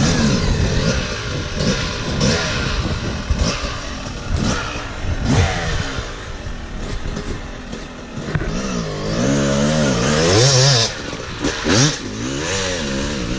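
Dirt bike engine revving as the bike rides over rough ground, its pitch rising and falling again and again with the throttle, loudest in the second half.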